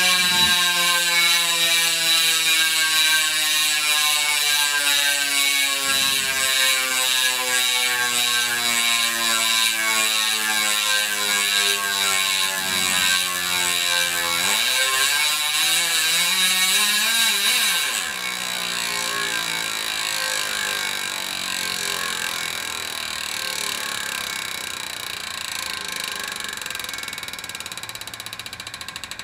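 Chris King ISO stainless rear hub freewheeling, its ring-drive ratchet giving the high, loud "angry bees" buzz of a freshly broken-in hub. The buzz falls slowly in pitch as the wheel spins down, rises and falls again about halfway, then goes on quieter and rougher for the last third.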